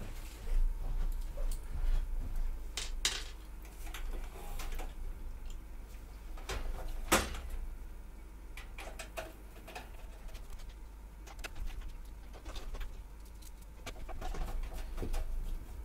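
Screws being driven by hand with a screwdriver to fix a power supply into a steel PC case: scattered metal clicks, taps and scrapes, the loudest knock about seven seconds in, over a steady low hum.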